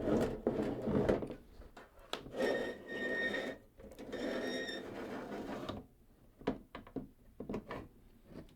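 The internals of a Roland GP-16 guitar effects processor being slid out of the unit's casing: several stretches of scraping, one with a faint squeal, then light clicks and knocks of handling near the end.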